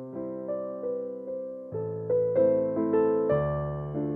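Background piano music: a gentle melody of single notes struck about twice a second, each fading, over low chords.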